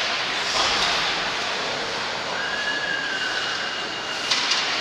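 Ice hockey skate blades scraping and hissing steadily across the rink ice, with a few sharp clacks of sticks and puck near the end.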